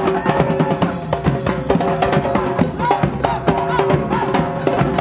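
Live percussion ensemble: djembes struck by hand together with stick-beaten drums and a drum kit, playing a dense, fast rhythm, with held pitched notes sounding over the drumming.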